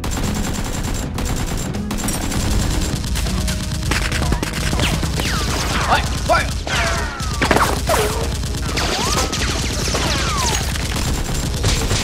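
Rapid gunfire sound effects: a sustained run of automatic shots, dubbed over a Nerf blaster firefight. Whining sounds sweep up and down through the middle of the burst.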